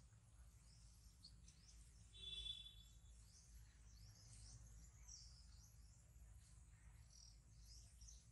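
Faint bird chirping and insect sounds, with one short high-pitched call about two seconds in.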